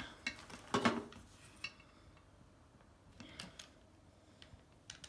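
Small clicks and clatter of hard plastic and metal parts being handled as a hinge pin is pushed into a washer dryer door handle, with the loudest clatter a little under a second in and scattered lighter clicks after.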